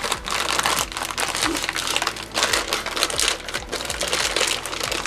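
A plastic packaging bag crinkling as it is pulled open by hand, an irregular run of crackles.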